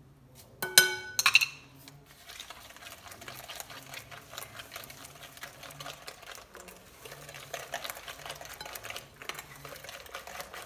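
Hand whisk beating liquid cake batter in a glass bowl: a fast, steady run of scraping and rattling strokes. About a second in, two ringing clinks against the glass.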